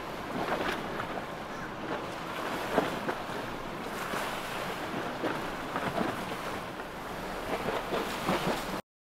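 Wind buffeting the microphone over the noise of boats and water, cutting off abruptly near the end.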